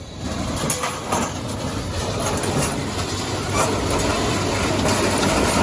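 Scrap-yard material handler running while its lifting magnet drags scrap metal out of the back of a vehicle, with metal clanking and scraping and a few sharp clanks.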